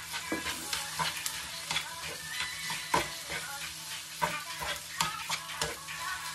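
Fried rice sizzling in a frying pan while it is stirred and tossed, the utensil scraping and knocking against the pan several times a second.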